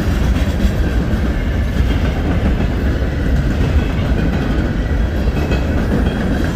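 Freight train cars (boxcars and covered hoppers) rolling past close to the track. A steady low rumble of steel wheels on rail, with light clicks from the wheels.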